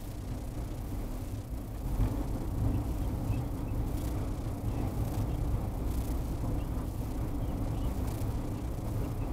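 Car interior driving noise picked up by a G1W dashcam's built-in microphone: a steady low road and engine rumble under a hiss, with a few faint crackles. The hiss and crackling are the known audio fault of this dashcam's recordings.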